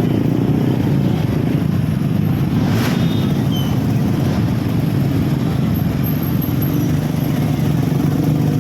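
A vehicle engine running with a steady low rumble, and a brief sharp noise about three seconds in.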